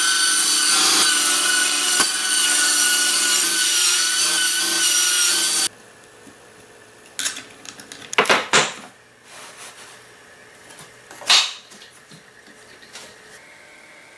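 A power tool runs with a high, steady whine while cutting wood, and stops suddenly about six seconds in. A few knocks and clatters follow.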